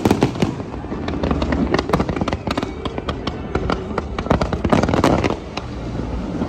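Fireworks display: dense, irregular crackling and popping of bursting shells over a low rumble, with several sharper bangs.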